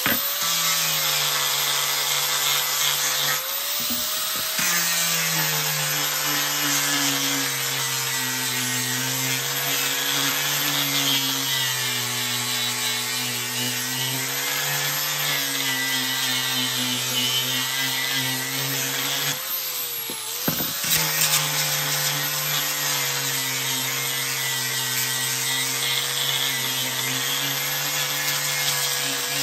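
Electric angle grinder with a sanding disc sanding a pallet-wood board: a steady motor whine over the rasp of abrasive on wood. The motor winds up at the start and its pitch sags briefly twice.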